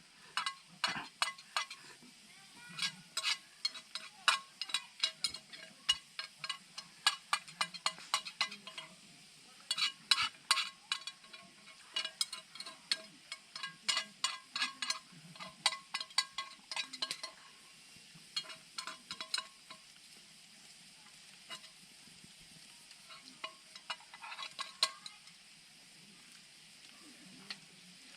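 Metal utensil stirring and scraping in a metal pan: runs of quick clinking strokes with a ringing tone, pausing now and then and tailing off in the second half.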